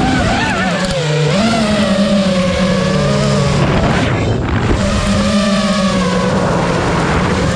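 FPV freestyle quadcopter's brushless motors whining, the pitch rising and falling again and again with throttle changes over a dense hiss.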